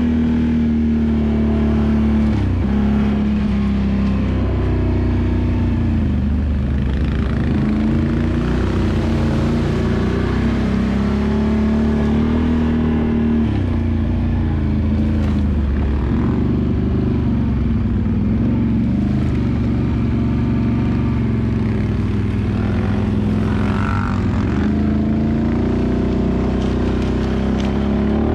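Can-Am ATV's V-twin engine running under way, its pitch repeatedly dropping and climbing again as the throttle is eased and reapplied.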